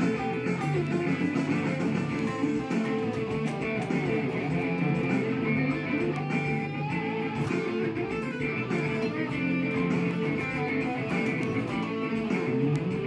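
Electric guitar lead improvisation on a Jackson Dinky JS32 through a Hughes & Kettner Grandmeister Deluxe 40 valve amp, played over a backing track.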